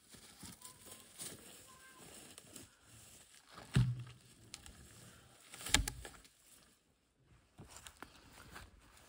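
Footsteps and rustling in grass, then two heavy wooden thuds about two seconds apart as logs are pushed off a pile and drop to the ground.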